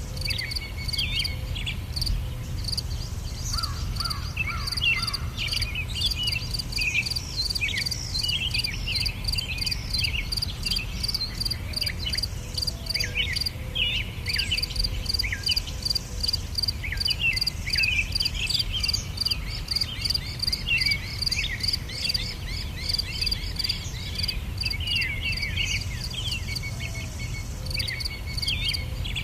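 Forest ambience: an insect trilling in fast, regular pulses, with many birds giving short, falling chirps over it and a steady low rumble underneath.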